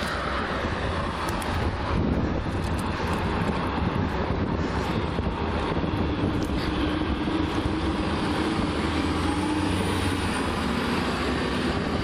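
Steady traffic and road noise from motor vehicles, with a faint engine hum near the middle.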